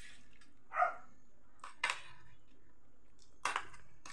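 Forks clicking and scraping against a metal tray of noodles: two short, sharp clatters, about two seconds in and again near the end, after a brief muffled sound about a second in.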